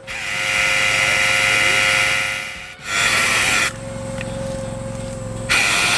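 Hydraulic pole saw's 12-inch chainsaw head running in bursts as it cuts a tree branch: a long run of about two and a half seconds, a short one after a second's gap, and another near the end. Between the bursts, a lower steady hum from the boat's engine driving the hydraulics.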